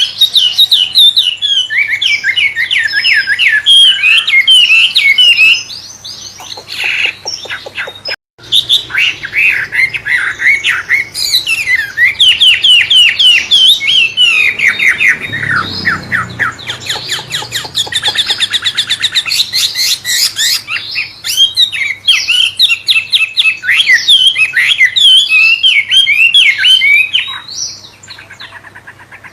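A caged 'wambe' songbird singing a loud, varied, shama-like song of quick whistled phrases and trills, with a rapid run of repeated notes in the middle. The song stops for a moment at a break just past 8 seconds and drops away near the end.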